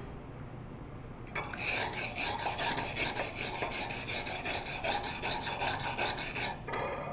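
Hand wire brush scrubbing a MIG weld bead on a steel plate in rapid back-and-forth strokes, about four a second, to clean off weld spatter. The brushing starts about a second and a half in and stops shortly before the end.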